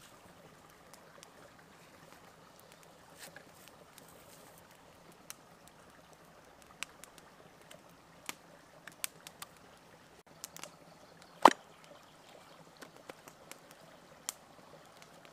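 Small scattered clicks and taps from raw lamb being pulled apart and trimmed with a knife on a flat stone, with one sharp, much louder knock about eleven seconds in. A faint steady rushing noise runs underneath.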